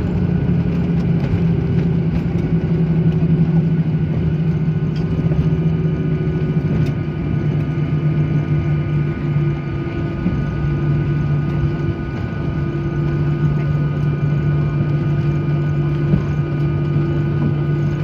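Jet airliner's engines and airflow heard from inside the cabin during the landing roll: a loud, steady drone with a low hum and several high whining tones.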